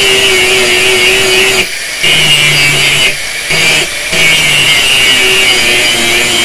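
Handheld angle grinder with an abrasive disc grinding a flat steel piece: a loud, steady, high-pitched grinding over the motor's whine. It breaks off briefly three times, between about one and a half and four seconds in, as the disc lifts off the metal.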